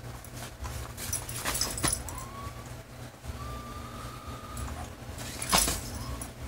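Cat's Meow motorised cat toy running with a low hum under its nylon cover, while a cat paws and pounces on the rustling fabric. The loudest scratchy rustle comes about five and a half seconds in.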